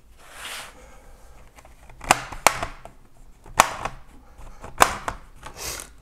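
Plastic snap clips of an Acer TravelMate Vero laptop's bottom cover popping loose as the cover is pried free: four sharp clicks, two of them close together, with brief scraping of plastic near the start and near the end.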